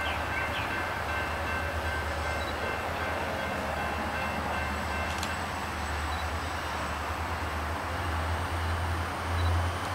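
A train approaching in the distance, its locomotive giving a low, steady rumble.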